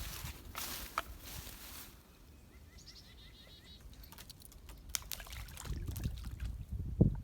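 Footsteps on the woodland ground, with a bird calling a quick run of short repeated notes about three seconds in; the steps grow heavier toward the end.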